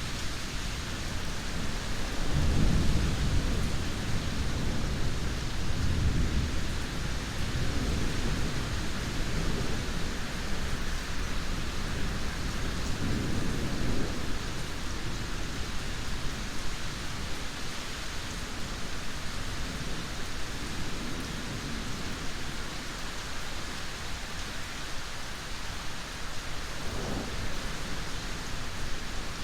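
Steady heavy rain, with low rumbles of thunder rolling in a couple of seconds in and lasting several seconds, another about halfway through, and a short one near the end.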